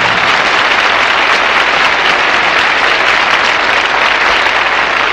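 Concert audience applauding loudly and steadily at the end of a song.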